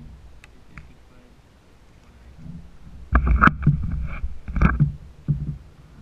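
Loud, close knocking and clattering on a plastic kayak, in two bursts a little after three seconds in and around four and a half seconds, with a last knock just after five seconds. Before that there is a low rumble and a couple of faint clicks.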